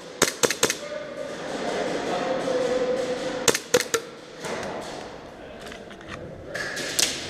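Airsoft guns firing short bursts of a few sharp shots, three times: just after the start, around three and a half seconds in, and near the end.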